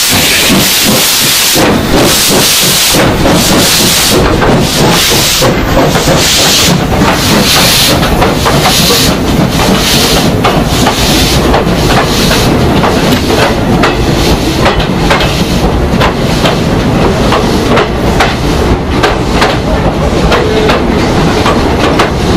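Steam locomotive at close range hissing steam, with a run of regular beats and clicks from the working engine and its wheels on the rails; the hiss is strongest at first and the beats come quicker later on.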